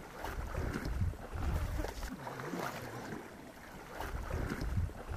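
Wind buffeting the microphone in gusts, over water lapping and sloshing around cattle wading in a pond.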